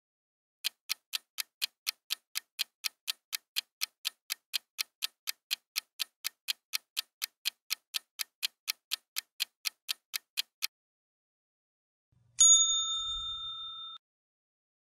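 Clock-ticking sound effect, about three and a half ticks a second for ten seconds, counting down the quiz round's 10-second timer. Then a single bright ding rings out and fades over about a second and a half.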